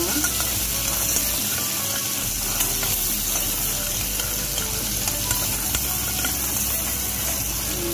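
Diced onions and carrots sizzling steadily in hot oil in a pot, stirred now and then with a metal spoon.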